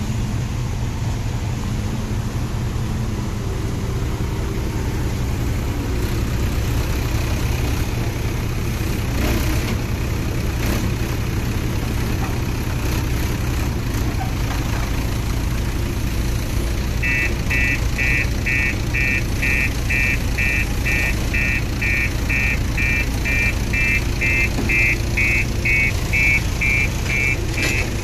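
A steady low machine hum runs throughout. About two-thirds of the way in, an electronic buzzer starts beeping rapidly, about two beeps a second, and keeps going.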